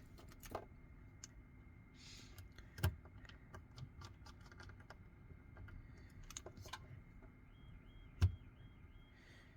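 Precision screwdriver and small parts clicking and tapping against a smartphone's internal frame as tiny screws are put back in: scattered light clicks, with two sharper knocks about three seconds and eight seconds in.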